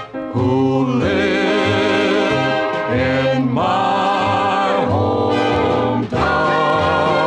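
1940s big-band song with a vocal group singing long, wavering harmony notes in phrases broken by short pauses, over a band.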